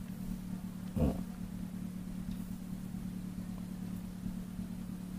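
A steady low motor hum, with a brief soft sound about a second in.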